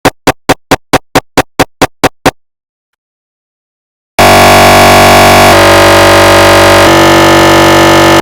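Synthesized imitation of a GE Signa 1.5 T MRI scanner running a T1 sequence. A run of about eleven sharp knocks, four or five a second, is followed by a pause of about two seconds, then a loud continuous buzz that steps to a new pitch twice and cuts off suddenly.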